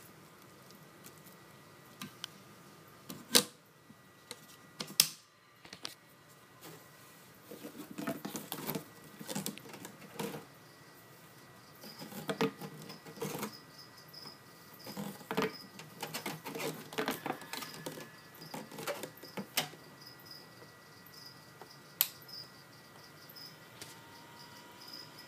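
Clicks, knocks and rustling from handling at a gecko terrarium, two sharp clicks a few seconds in the loudest. A cricket chirps in a high, thin trill from about halfway.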